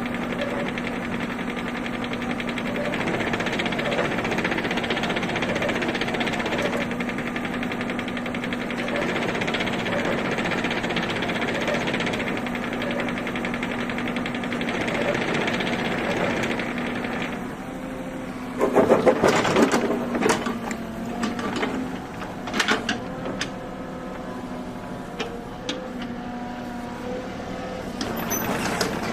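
Kubota U30-3S mini excavator's diesel engine running steadily with a constant hum. About 17 seconds in, the engine sound drops, and a run of loud, sharp metallic clanks and knocks follows.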